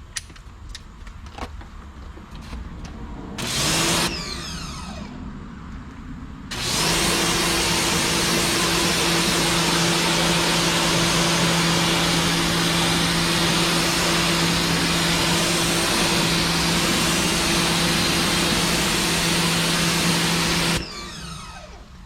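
Sun Joe SPX3000 electric pressure washer spraying: a short burst about three seconds in, then the pump motor runs with a steady hum under the hiss of the water jet for about fourteen seconds. It stops near the end, the motor winding down with a falling whine.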